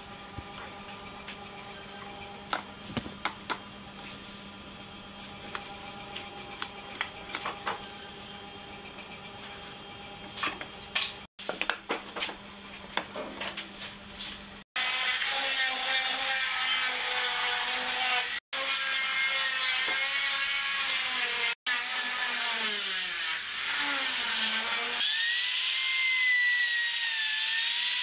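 Pine boards knocked and slid on a wooden workbench as they are set in place, then a compact trim router running loud and cutting the pine, its motor whine wavering and dropping in pitch under load before holding a steady high whine near the end.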